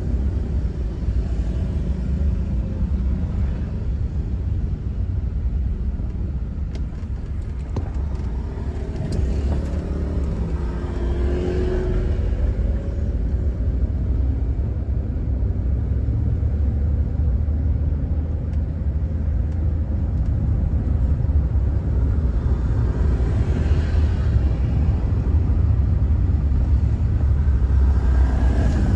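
Steady low road and engine rumble heard inside a moving car's cabin. Other vehicles swell past about a third of the way in and again near the end.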